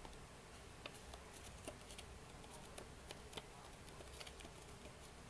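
Faint rustling and small crinkling ticks of paper petals being rolled and curled by hand, over a low steady hiss.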